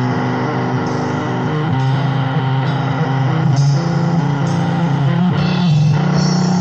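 Loud punk rock from a compilation tape: a distorted electric guitar riff, its chords changing about every half second. There is a brief gap in the guitar near the end, and then the riff returns.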